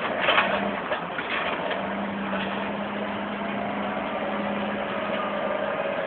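Heavy diesel engines of logging machinery, a crawler bulldozer and wheel loader, running steadily with a low, even hum. There is a brief louder, rougher burst just after the start.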